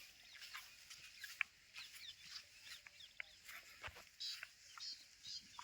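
Faint bird calls: many short, high chirps and clicks in quick succession, a few each second.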